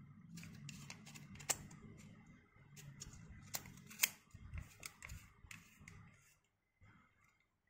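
Scattered sharp clicks and light rubbing as a Nikkor-Q Auto 135mm f/2.8 camera lens is turned over in the hand, its rings and barrel handled; the two loudest clicks come about a second and a half and four seconds in. A faint low hum runs underneath.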